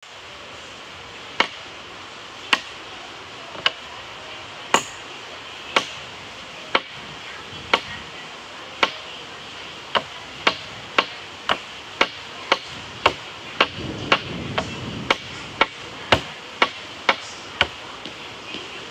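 Sharp, evenly spaced clicks or taps, about one a second, speeding up to about two a second roughly halfway through, over a steady background hiss.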